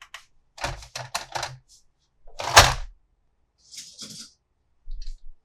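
Hard plastic toy parts clicking and knocking as they are handled: a quick run of clicks about a second in, one louder knock just past the middle, then a brief rustle.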